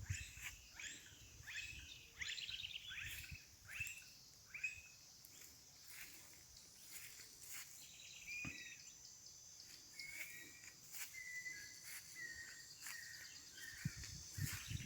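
Songbirds singing faintly: first a quick run of short sweeping notes, about two a second, then softer short whistled notes. A steady high-pitched hum builds from about halfway through.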